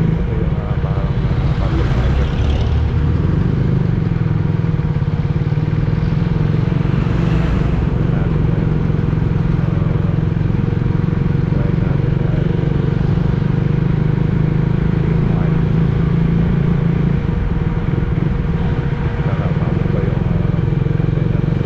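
Motorcycle engine running steadily while riding at low speed in town traffic, with a constant low rumble and road noise.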